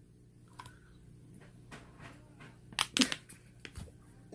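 A few light clicks and knocks of small objects being handled, the loudest cluster about three seconds in, over quiet room tone.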